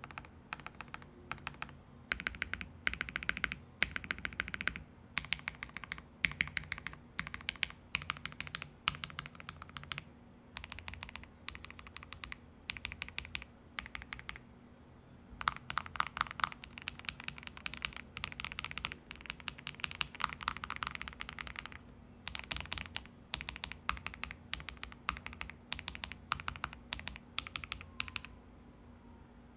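Typing sound test on an MW65 stacked-acrylic 65% gasket-mount keyboard with lubed KTT Mint linear switches on a polycarbonate plate, tape-modded with case and plate foam: runs of quick keystrokes in bursts of a few seconds with short pauses between.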